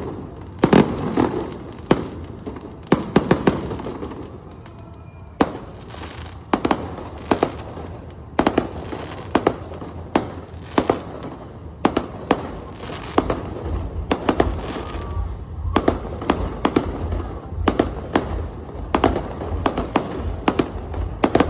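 Aerial fireworks display going off: a steady run of sharp bangs, about one or two a second and sometimes in quick clusters, with crackling between them.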